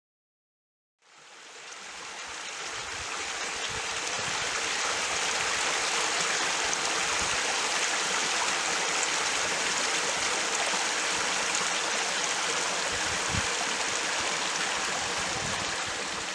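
Shallow stream running over stones, a steady rush of flowing water that fades in from silence about a second in.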